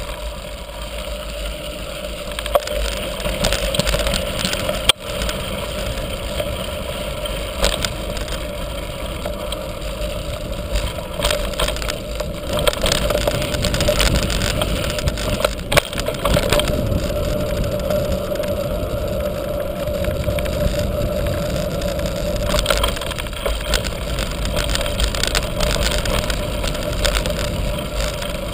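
Orbea mountain bike ridden fast down a dirt and gravel trail, heard from the rider's own camera: steady rolling tyre and wind noise with frequent sharp clicks and knocks as the bike rattles over bumps.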